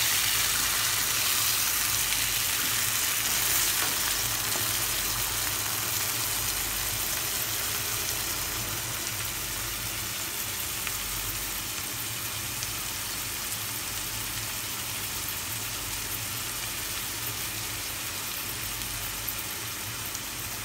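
Chopped tomatoes, shallots and green chillies sizzling steadily in hot oil in a non-stick frying pan, stirred with a spatula at the start; the sizzle eases slightly as the tomatoes soften.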